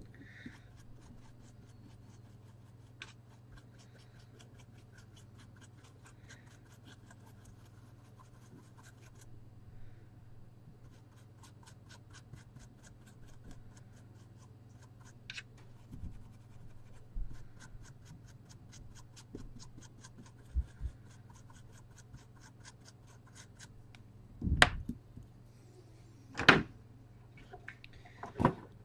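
Faint, rapid fine scratching strokes as flux residue is scrubbed off an iPhone logic board after rework. Three dull knocks come in the last few seconds.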